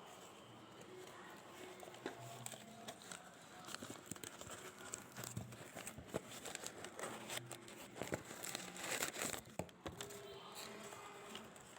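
Parcel packaging being handled as it is opened: irregular crinkling and crackling with some tearing, busiest near the end.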